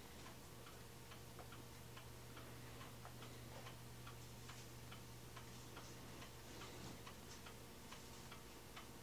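Faint, steady ticking, about two or three ticks a second, over a low hum and hiss, close to near silence.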